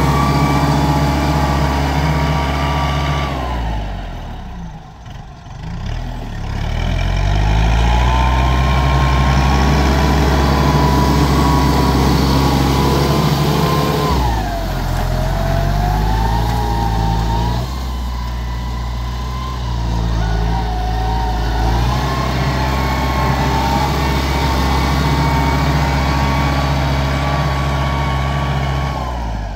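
Diesel tractor engine running hard while pulling a disc harrow through dry soil, with a steady whine over it. Its pitch drops sharply and comes back up about five seconds in, and sags and wavers again about halfway through as it takes the load.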